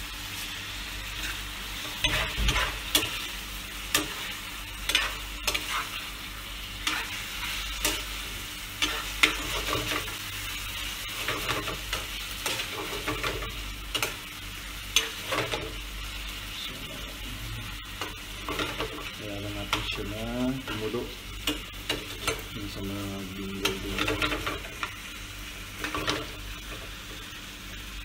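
Marinated chicken pieces sizzling as they sauté in a frying pan, stirred with a spatula that scrapes and taps against the pan many times at irregular intervals; the chicken is being browned until it changes colour.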